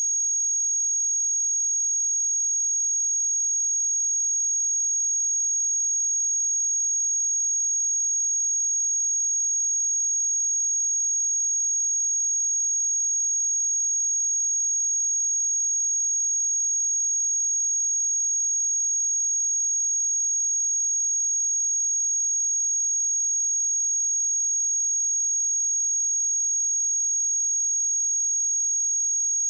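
A steady, unbroken high-pitched pure sine-wave test tone at 6585 Hz, for checking speakers or headphones.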